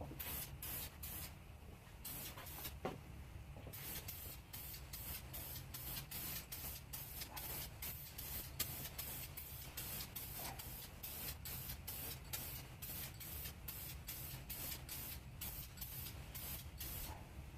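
A steady hiss of escaping pressurised gas, with faint, irregular ticks and crackles throughout.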